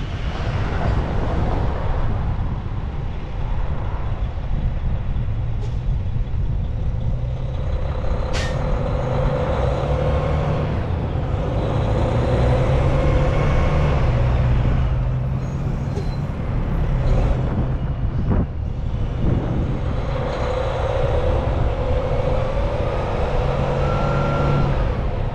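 Semi-truck driving: steady diesel engine and road noise, heard from outside the cab.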